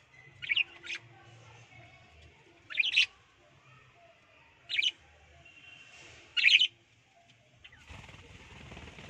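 Budgerigars giving several short, sharp chirps spread a second or two apart, then a burst of wing flapping near the end as one budgie flutters up.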